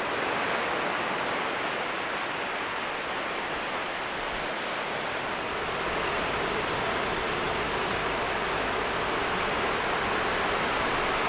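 Ocean surf washing steadily onto a sandy beach, an even rushing hiss with only slight swells in level.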